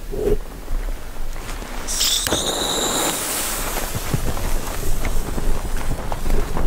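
A firework going off with a sudden hiss and a steady high whistle about two seconds in, fading out over about a second and a half.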